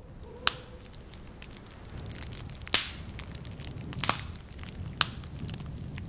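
Wood fire crackling: many small ticks over a low steady rush of flame noise, with four louder sharp pops spread through.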